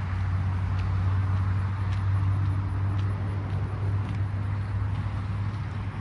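Footsteps on a paved walkway, about one every half second, over a steady low hum that eases off near the end.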